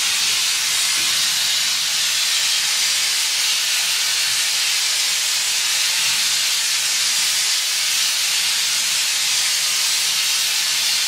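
Gas torch burning with a steady, even hiss, its flame heating a sand-packed exhaust pipe for bending.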